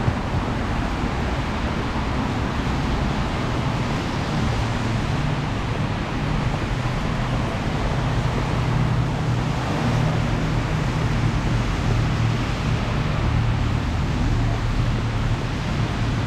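Steady city traffic noise on a wet street in the rain: a constant low rumble of engines with the hiss of tyres and rain.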